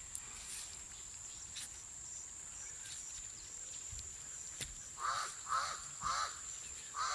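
Pied crow cawing: a run of harsh, evenly spaced caws, about two a second, starting about five seconds in. A steady high-pitched whine sounds throughout.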